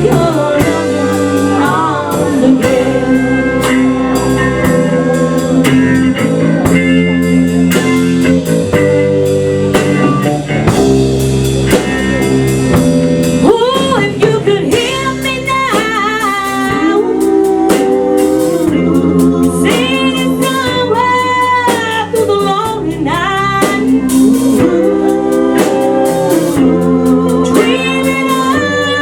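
Live band playing a song: a lead singer over electric guitar, bass and a drum kit keeping a steady beat.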